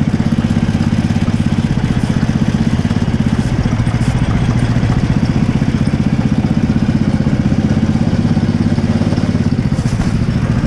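Go-kart engine running steadily at speed, heard close up from the kart itself, with a fast even pulsing note.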